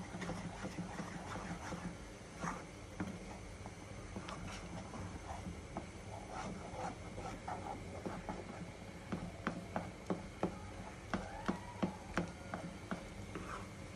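A thick rice-flour dough for khichu being stirred in a pot: soft scraping with irregular light knocks of the stirring utensil against the pot, becoming sharper and more frequent about two-thirds of the way in.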